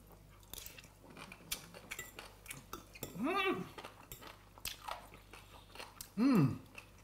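Close-up eating sounds: people chewing food, with small clicks of forks against plates. There are two short hummed voice sounds, about three seconds in and again about six seconds in.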